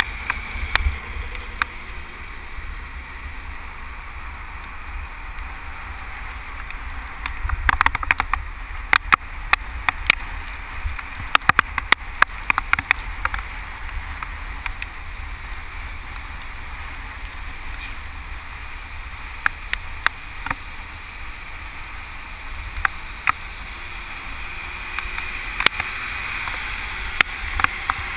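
Bicycle riding in traffic heard from a bike-mounted camera: steady wind rumble on the microphone and road hiss from the tyres. Scattered sharp clicks and taps come in clusters about eight to thirteen seconds in, again around twenty seconds, and near the end.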